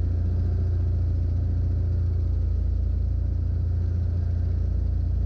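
Steady drone of a Jabiru 250 light sport aircraft's engine and propeller heard inside the cockpit, running evenly at reduced power in a descent toward landing.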